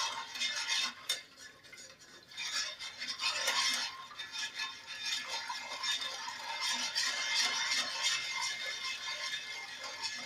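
Metal spoon stirring and scraping around a non-stick saucepan of thin white sauce, milk whisked into an oil-and-flour roux, with a short lull about a second in.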